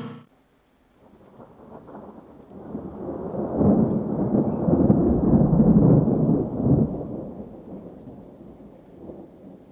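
A low rumbling noise that builds from about a second in, is loudest in the middle, and slowly dies away.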